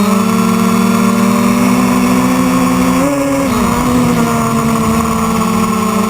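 Quadcopter's electric motors and propellers whirring in flight, a steady multi-tone hum whose pitch briefly drops and wavers about three seconds in, then settles again.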